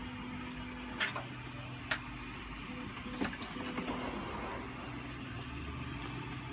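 Light knocks of 3D-printed plastic parts being set down and handled, three short clicks in the first few seconds over a steady low hum.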